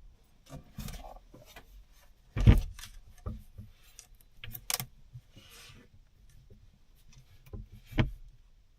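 Objects being handled: a run of knocks, clicks and clinks, with a heavy thump about two and a half seconds in and another near the end, and a short hiss in between.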